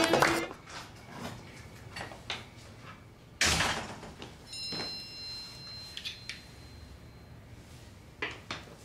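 A door shutting with one heavy thud about three and a half seconds in, among faint footsteps on a hallway floor. Soon after comes a short high electronic tone, then another sharp knock near the end.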